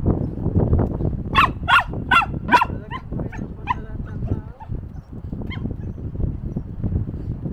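Samoyed puppy barking: four quick, high barks about a second and a half in, then a few softer yips. The barking is excited and playful, a sign that she wants to greet and play with people.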